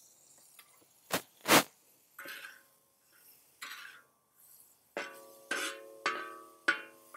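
Two loud sharp knocks about a second in, then plucked acoustic guitar music coming in, its notes ringing out about every half second.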